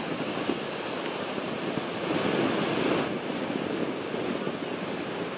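Ocean surf and wind, a steady rushing noise that swells slightly about two seconds in.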